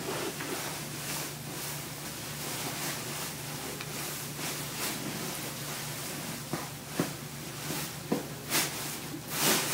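Beanbag fabric rustling and a few soft knocks as a toddler clambers over it, louder near the end, over a steady low room hum.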